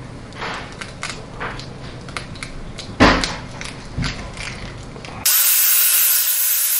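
An egg is knocked against the rim of a plastic food processor bowl and broken open, with small taps of shell. About five seconds in, the food processor is switched on and runs with a loud, steady whir, blending the wet dough.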